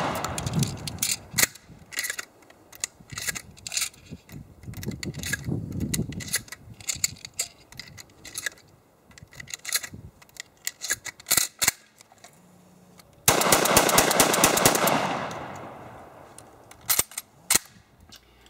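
Shotgun shells being thumbed one after another through the loading gate into the magazine tube of a Remington 1100 semi-auto shotgun: a run of sharp metallic clicks and clacks with handling knocks. About 13 seconds in, a loud burst of rushing noise cuts in and fades away over a few seconds.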